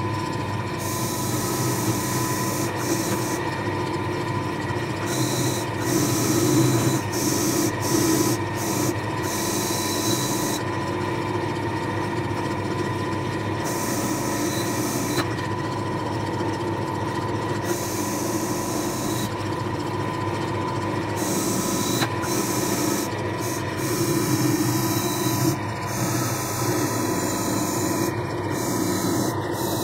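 Wire wheel spinning in a bench pillar drill, with rusty iron vice parts pressed against it to strip off the rust: a steady, unbroken scratchy brushing of wire on metal.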